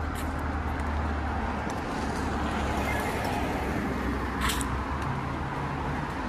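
Street traffic: a steady hiss of passing vehicles over a low engine hum, with a few faint clicks and one brief sharp high sound about four and a half seconds in.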